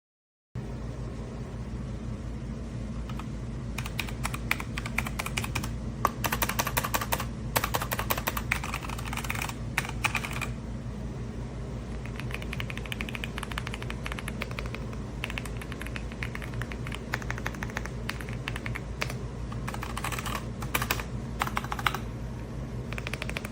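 Typing on an EPOMAKER x Aula F75 gasket-mounted 75% mechanical keyboard: quick runs of key clicks in three bursts with short pauses between, over a steady low hum.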